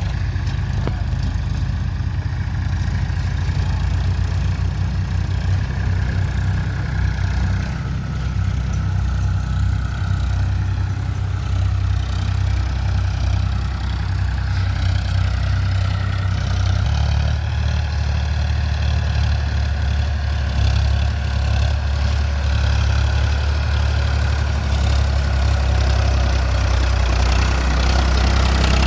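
Diesel engine of heavy farm or earthmoving machinery running steadily with a deep rumble, which gets lower and slightly louder about halfway through.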